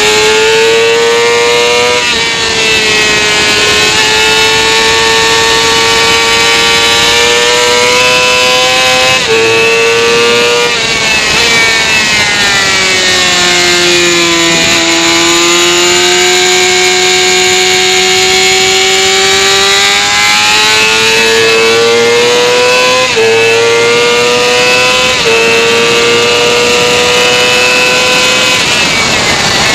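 Sportbike engine at high revs, recorded onboard: its pitch climbs and drops back abruptly several times as the rider shifts up. Around the middle it falls away as the bike slows, holds lower through a long corner, then climbs again through more upshifts.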